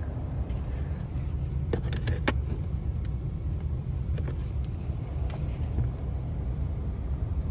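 Low, steady rumble of the Ford F-150 pickup idling, heard from inside the cab, with a couple of sharp plastic clicks about two seconds in from the overhead console being handled.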